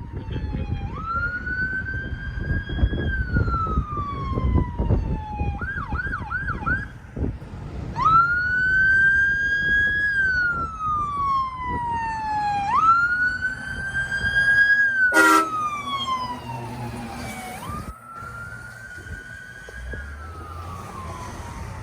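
Fire truck's electronic siren on wail, rising and falling slowly in cycles of four to five seconds, broken once by a quick burst of four short yelps about six seconds in. A very brief horn blast cuts through about fifteen seconds in, over the rumble of the passing trucks.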